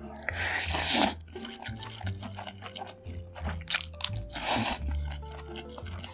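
Close-miked eating: crunchy bites and chewing, with two louder crunching bursts, about a second in and again past the middle, over background music with held bass notes.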